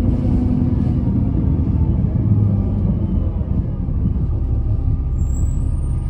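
Cabin sound of an Alexander Dennis Enviro 300 single-deck bus under way: a steady low engine and road rumble that eases slightly about two-thirds through, with a brief faint high whistle near the end.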